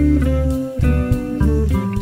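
Background music led by guitar over a steady bass line, with one sliding note near the end.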